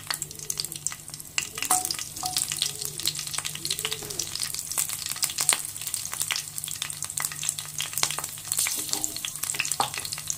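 Green chillies sizzling in hot oil in a pan, with a steady high hiss and many irregular crackles and pops as the oil spits. A steady low hum runs underneath.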